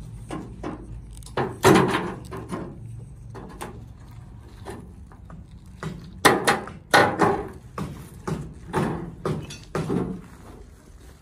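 Hollow clay bricks being pulled from rubble and set down on a pile: an irregular run of knocks and clatters, busiest about a second and a half in and again from about six to ten seconds in.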